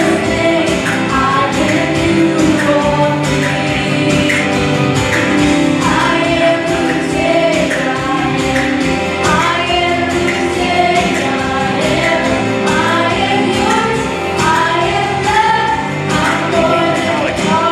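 Live contemporary worship song: two female voices singing a melody over a Nord Piano 5 stage keyboard, with a steady beat underneath.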